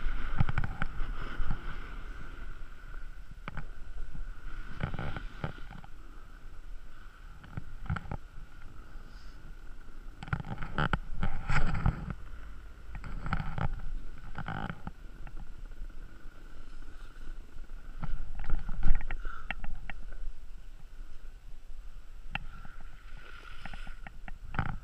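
Ski or snowboard edges scraping and swishing over packed snow in irregular runs, turn after turn, with a steady low wind rumble on the microphone.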